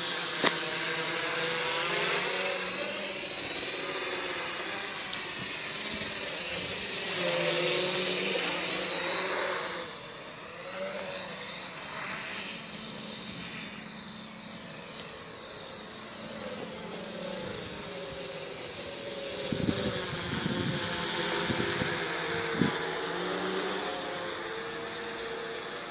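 Small hobby quadcopter's electric motors and propellers whining in flight, their pitches drifting up and down as it climbs and manoeuvres overhead. A few short low bumps come about twenty seconds in.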